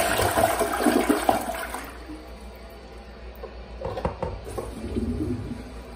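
Toilet flush ending: water rushing down the drain for about two seconds, then dropping to a quieter gurgle and trickle as the bowl refills.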